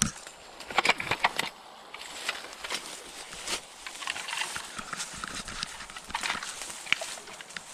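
Leaves rustling and twigs and branches snapping as a bicycle is pushed through the crown of a fallen tree, with a quick run of sharp cracks and knocks about a second in, then irregular rustling and clicks.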